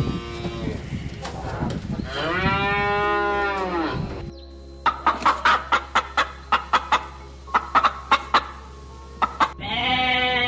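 A cow lowing in one long drawn-out moo. Then chickens feeding, with a run of short, sharp sounds about two a second. Near the end a sheep bleats.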